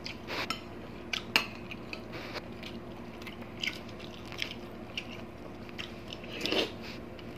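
Close-miked eating: wet mouth smacks and chewing of rice and soft boiled bottle gourd, with a few sharp clicks, over a faint steady hum.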